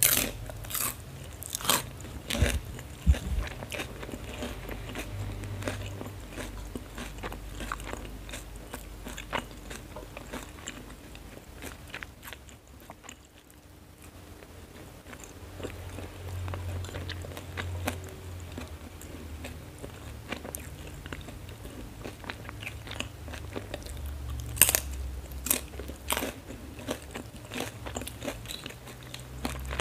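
Close mouth sounds of a person eating fried noodles: steady chewing with sharp crunches, loudest in the first few seconds and again about 25 seconds in, with a quieter spell near the middle.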